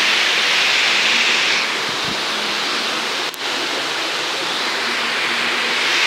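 Waterfall pouring into a rock cave: a steady rush of falling water that eases slightly after about a second and a half, with a brief click about halfway through.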